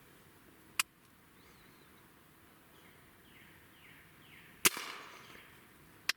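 Three sharp clicks or knocks. The loudest comes a little past four and a half seconds in and has a short fading tail. Between them, faint bird chirps come as a string of quick descending notes.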